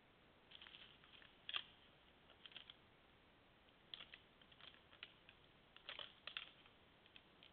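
Whitetail buck antlers clicking and clattering together as two bucks spar: faint, irregular runs of sharp clacks, the loudest about a second and a half in, with more clusters around four and six seconds.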